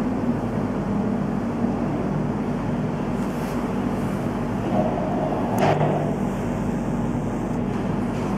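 Steady low background rumble, with one short sharp click about five and a half seconds in.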